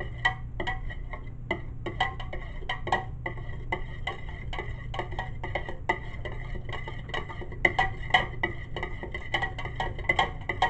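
A utensil stirring a liquid coconut-milk mixture in a bowl, clinking quickly and steadily against the sides several times a second, with the bowl giving off a ringing note. The clinks are louder for a moment a little past the middle.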